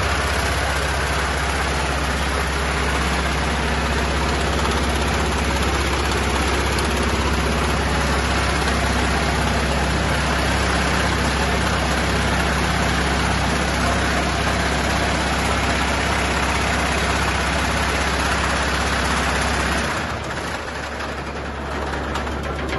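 Terex Evoquip Harrier 220 compact scalping screen running: its Kohler engine hums steadily with evenly spaced low tones under an even wash of higher mechanical noise. About 20 seconds in, the low hum drops away and the sound thins.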